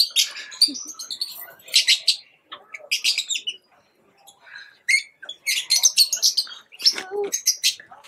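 A flock of lovebirds chattering in quick, high-pitched chirps that come in bursts with short pauses between them.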